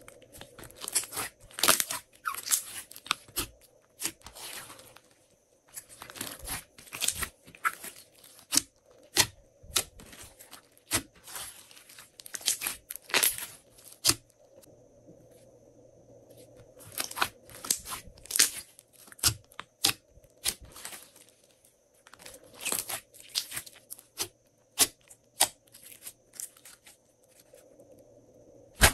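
Hands squeezing and stretching glossy slime: clusters of crackling clicks and pops, each run lasting a second or two, with short pauses between.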